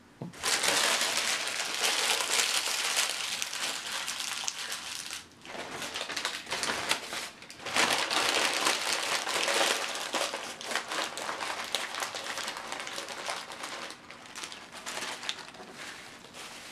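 Paper food wrapper being crumpled and crinkled by hand, a dense crackling that starts suddenly, pauses briefly twice, and tails off near the end.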